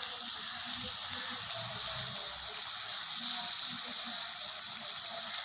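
Pieces of rabbit meat sizzling steadily in oil in a clay pot over a wood fire, at the stage where the meat has released its oil.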